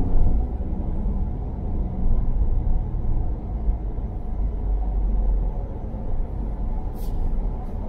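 Car driving, heard from inside the cabin: a steady low engine and road rumble, with a brief sharp click near the end.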